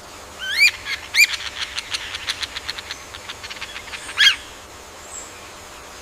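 A bird calling: three loud, ringing calls that sweep up and back down in pitch, with a rapid run of short clicking notes between the second and third.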